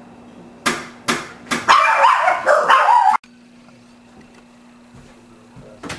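A dog barking: three sharp barks about half a second apart, then a rapid, loud run of barks and yips that cuts off suddenly a little after three seconds in.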